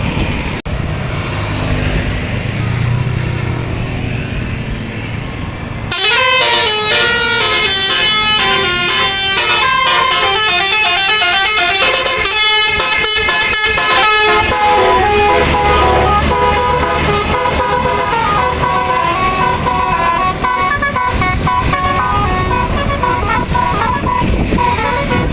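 Indonesian bus telolet basuri multi-tone air horn playing a quick melody that starts suddenly about six seconds in, after a stretch of engine and road noise. Later the tune shifts to longer held notes, with the bus engine rumbling underneath.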